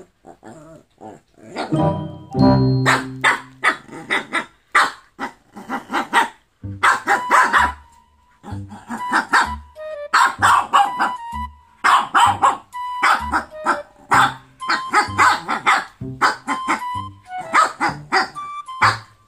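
Shih Tzu puppy barking over and over in short, sharp barks, attention-seeking barks aimed at a lazy toy poodle, starting about two seconds in.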